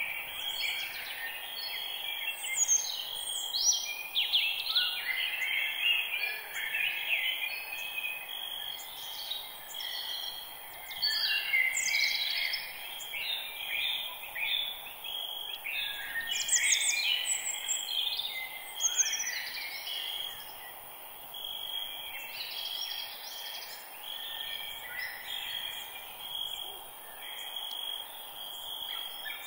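Forest bird chorus: several birds chirping and singing in quick, overlapping phrases, over a steady high insect drone.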